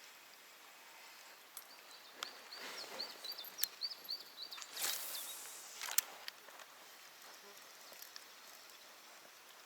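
Quiet handling of a spinning rod and reel in a boat: a few sharp clicks and two brief swishes in the middle, with a run of short high chirps between them.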